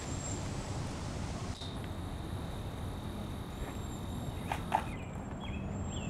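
Outdoor woodland ambience: a steady low rumble, a few short high bird chirps and a thin steady high whine. A single sharp knock comes just before the end.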